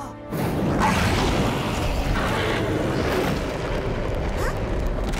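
A loud, sudden rumbling boom begins about a third of a second in and goes on as a dense, heavy rumble.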